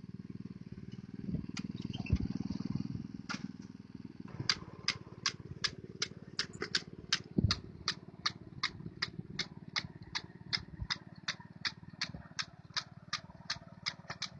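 Rice transplanter's small engine running with a steady low hum; from about four seconds in a regular clicking joins it, about three clicks a second.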